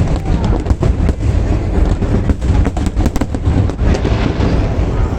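Fireworks display in a dense barrage: many rapid, overlapping bangs over a continuous heavy low rumble.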